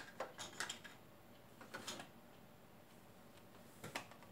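Faint, scattered clicks and light knocks from small objects being handled and moved about while rummaging: a few in quick succession at the start, a couple about two seconds in, and more near the end.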